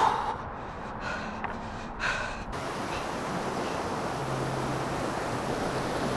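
A trail runner's hard, gasping breaths, two of them about a second apart. About two and a half seconds in, they give way to a steady rushing noise.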